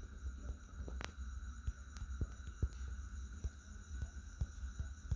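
Faint taps of typing on a phone's on-screen keyboard, a few irregular clicks a second, over a low steady hum.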